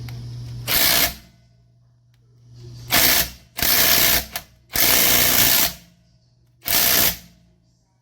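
AOBEN 21V cordless impact wrench triggered in five short bursts, each running for half a second to a second, with pauses between them.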